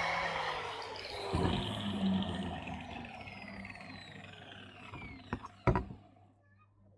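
An electric power tool's motor winding down after being switched off: its whine falls in pitch and fades away over several seconds. A few sharp clicks come near the end.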